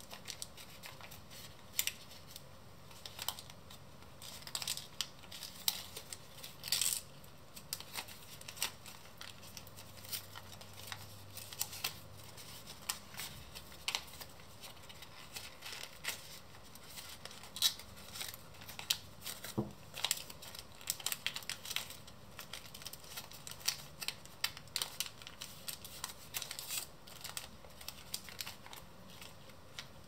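Folded paper rustling and crinkling in the hands as an origami model is pinched, creased and shaped, with many irregular sharp crackles of the paper.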